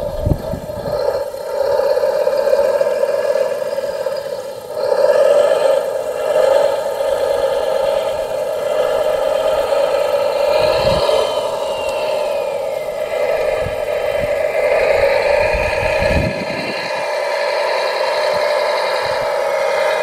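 Radio-controlled scale Volvo wheel loader running as it drives and works over crushed stone: a steady motor hum with whines that rise and fall as it manoeuvres, and a few short low thumps.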